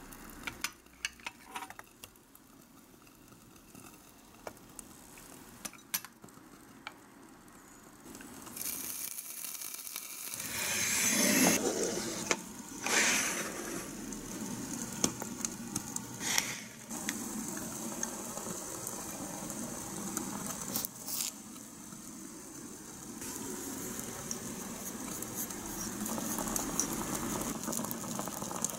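Small clicks of miniature cookware being handled. About ten seconds in comes a loud rush as water goes into the tiny pot, then a steady hiss of the water heating over a tealight flame, and near the end a few faint clicks of chopsticks stirring in the pot.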